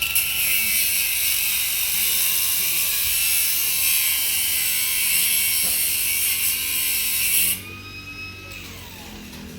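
Power tool run hard on the car's suspension fasteners: a loud, hissing, rattling run with a steady whine that cuts off abruptly about seven and a half seconds in, then a fainter whine winding down.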